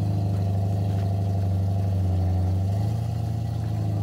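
Jeep engine running at low, steady revs while rock crawling, with a slight rise in revs about three seconds in.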